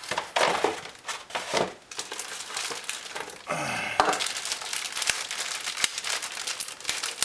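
Cardboard packaging of a laptop box being handled, rustling and crinkling, with a few light knocks and a brief falling squeak about halfway.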